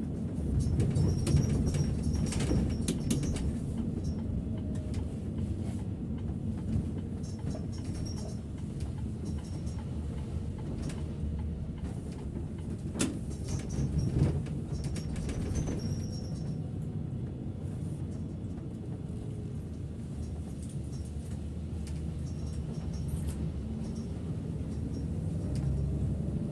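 Setra S 531 DT double-decker coach heard from the driver's seat: a steady low engine and road rumble, with occasional knocks and rattles from the body, loudest about two seconds in and again around thirteen to fourteen seconds in.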